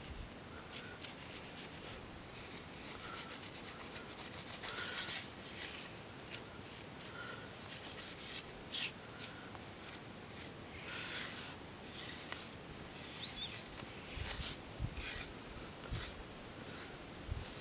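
Fingers rubbing wet white pipe-clay paste into the carved grooves of a wooden club: a run of rubbing strokes at an uneven pace, as the slippery ochre is worked into the incised line work.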